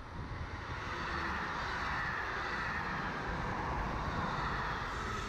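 SNCB electric multiple-unit passenger train passing close at speed: a rushing of wheels on rail that swells about a second in and holds.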